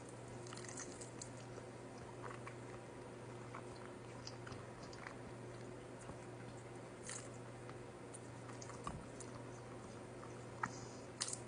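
A person chewing Buldak ramen noodles, with scattered soft wet clicks and smacks over a steady low hum.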